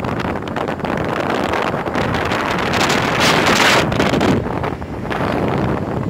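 Wind buffeting the microphone on a moving vehicle, with road noise underneath; a stronger gust about three seconds in.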